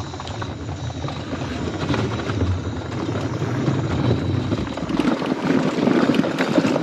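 Mobility scooter rolling over the plank deck of a footbridge, a steady low rumble of wheels on boards. About five seconds in the rumble drops away as it rolls off onto a dirt path.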